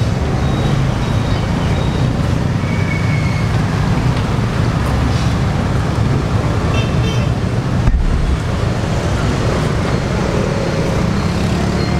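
Steady street traffic rumble of passing vehicles, with a short horn toot about seven seconds in and a thump about a second later.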